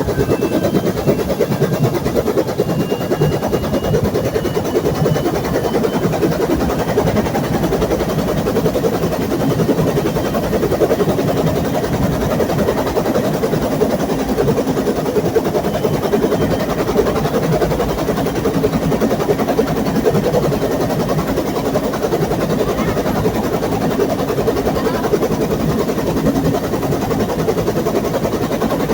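Bell UH-1 Huey helicopter running: its turbine engine and rotor make a loud, steady noise.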